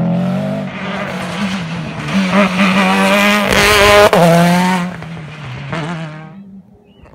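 Racing car passing close at full throttle, the engine note climbing in pitch and loudest about four seconds in, with a brief sharp break at the peak, then dropping and fading away near the end.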